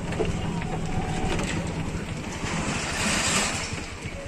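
Low rumble and hiss of a vehicle heard from inside its cabin as it slows and pulls up; the rumble fades near the end.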